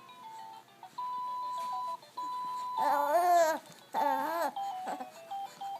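Two loud warbling, whine-like vocal calls about three and four seconds in, rising and falling in pitch. Underneath are plinking electronic music notes and a long steady beep.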